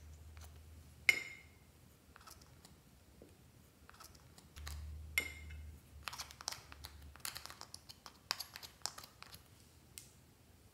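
Metal spatula scraping and tapping in a small plastic pot of cream makeup, with a sharp ringing click about a second in and another about five seconds in, then a run of quick scraping clicks as the product is dug out and dropped into a glass tray.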